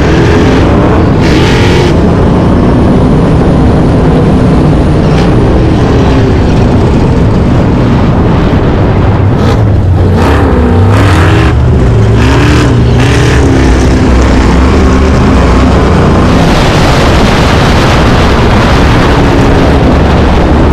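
Chevrolet K5 Blazer's engine revving hard in soft sand, its pitch climbing and dropping again and again, most plainly about halfway through.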